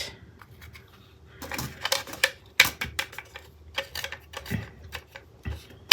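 Irregular light clicks and taps: a 3D-printed plastic diamond painting tray being tapped to knock loose a drill stuck in its corner, with the small drills rattling against it.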